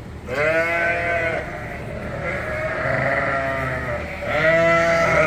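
Sheep bleating at feeding time: several long, drawn-out calls that fall in pitch, the loudest right at the start and again near the end, with a fainter one in between.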